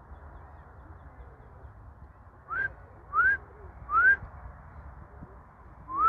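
Short, clear whistled notes, each sliding upward in pitch: three in quick succession around the middle and a fourth at the very end.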